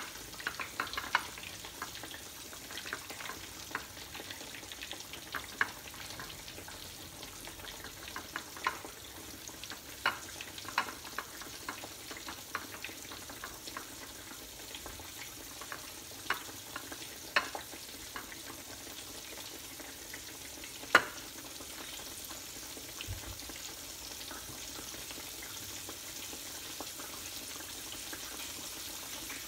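Flour-coated boneless milkfish (bangus) frying in hot oil in a pan: a steady sizzle with scattered sharp pops and clicks, the loudest about two-thirds of the way through, after which the sizzle runs on evenly.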